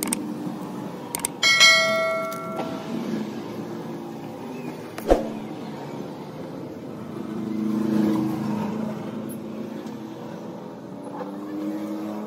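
A click followed by a short, bright bell-like chime from an on-screen subscribe-button animation. A single sharp click comes a few seconds later over a low hum.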